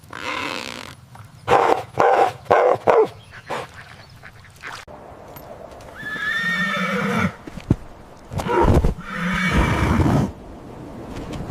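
Horse calling: a cluster of short loud bursts, then a pitched whinny about six seconds in, and a longer loud burst about nine seconds in.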